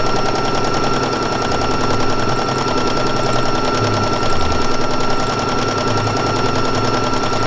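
Computerised sewing machine running fast in free-motion embroidery, the needle going up and down in a rapid, even chatter with a steady high whine from the motor.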